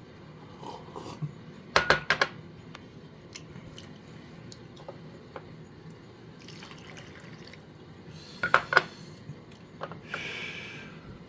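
Glass or ceramic kitchenware clinking in two short clusters of sharp clinks, about two seconds in and again around eight and a half seconds. Around ten seconds there is a brief sound of liquid, about a second long.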